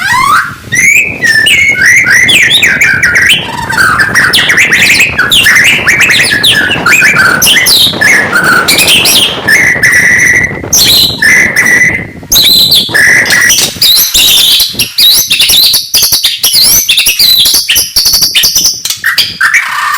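White-rumped shama (murai batu) singing a continuous, varied song of rapid whistles, swooping glides and chattering notes, with a few held whistles about halfway through.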